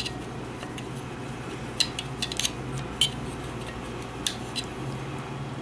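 Steel cleaning rod and patch clicking and scraping against the inside of a 1911 pistol's steel magazine body as the rod is worked through it: a handful of scattered light metallic clicks.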